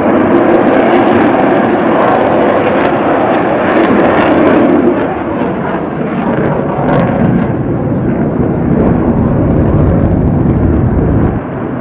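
Jet noise from Blue Angels F/A-18 Super Hornet fighter jets flying a display overhead, loud and steady, turning to a deeper rumble about halfway through and easing off just before the end.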